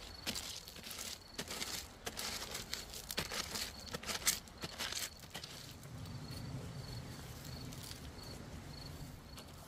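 River pebbles clattering and grinding as a pointed wooden stick is jabbed and levered into a stone beach to dig a hole, with sharp knocks of stone on stone, densest in the first half. An insect chirps in short regular pulses throughout.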